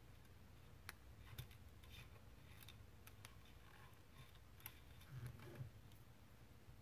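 Near silence with a few faint, scattered clicks from a plastic zip tie being handled and threaded around an AK's hammer spring legs.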